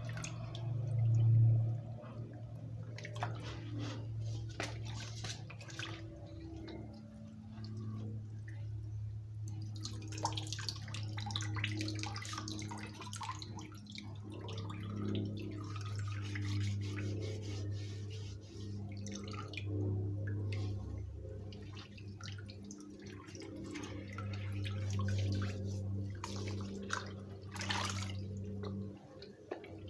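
Raw tripe being washed by hand in a plastic basin of water: irregular sloshing, squelching and water dripping and splashing back into the basin. A steady low hum runs underneath.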